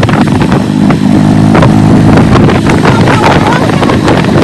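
A vehicle engine running steadily and loudly, with wind buffeting the microphone.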